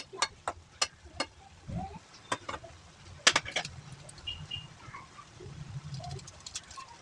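A run of irregular sharp clicks and knocks, about a dozen, in quick clusters, the loudest a little past three seconds in, over a low steady hum.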